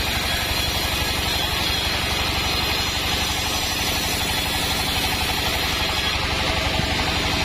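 Band sawmill running steadily while sawing waru (hibiscus) wood, with a fast, even low throb from its drive.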